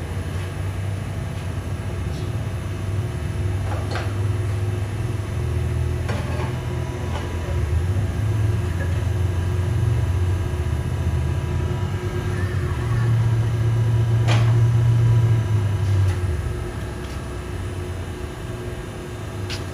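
A running engine's low, steady drone that swells a little past the middle and eases off near the end, with a few sharp knocks or clanks scattered through it.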